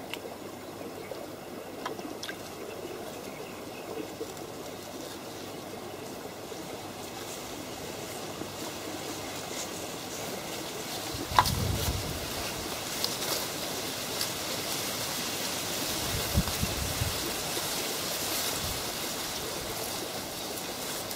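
Lake water lapping and trickling among reeds, with two short spells of low wind rumble on the microphone in the second half. A single sharp click about eleven seconds in is the loudest sound.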